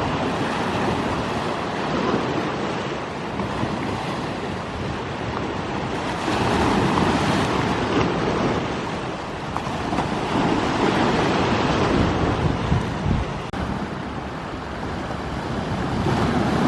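Sea waves breaking and washing ashore, a continuous rush that swells and eases every few seconds.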